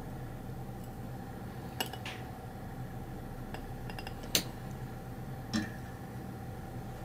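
Beer drawn from a keg faucet into a pint glass: a few sharp clicks and clinks of the glass and tap hardware, the loudest about four and a half seconds in and a duller knock soon after, over a steady low hum.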